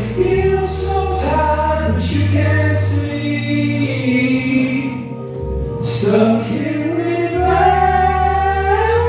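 Sung vocal melody over a backing track with long held bass notes: slow, drawn-out notes that glide between pitches, in two phrases with a short break about halfway.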